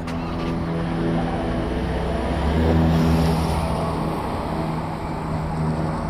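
Road traffic: car engines running, with a car passing close by, loudest about three seconds in.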